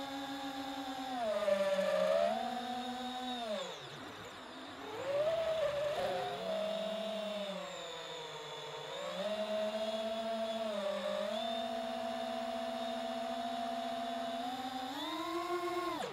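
FPV quadcopter's motors and propellers whining, the pitch dropping and rising together with the throttle: a deep dip about four seconds in, then a sharp rise near the end.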